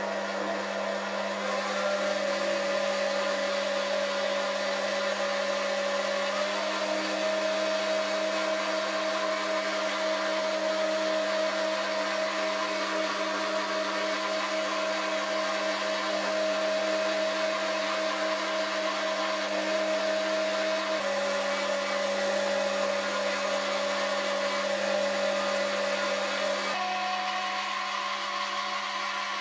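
Foreman TB1835 mini lathe running steadily under a facing cut on an aluminium bar, its motor whining over a steady hum. The whine rises in pitch about six seconds in, drops back about twenty-one seconds in, and rises again near the end.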